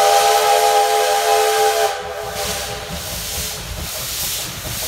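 Soviet steam locomotive's whistle sounding a steady chord of several tones, cutting off about two seconds in. Steam hisses and the oncoming locomotive rumbles throughout.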